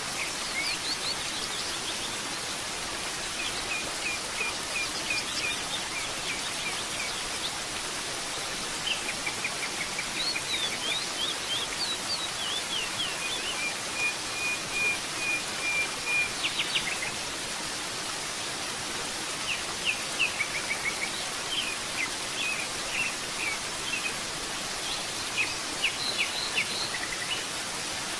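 Steady rush of a waterfall with songbirds chirping over it in scattered phrases, including a long even trill about halfway through.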